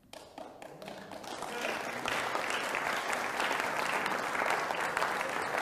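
Audience applause, starting faintly about half a second in and swelling to steady clapping by about two seconds in.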